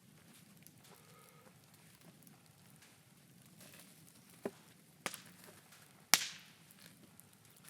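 Bonfire of scrap timber burning, giving three sharp cracks about four and a half, five and six seconds in, the last the loudest with a short tail.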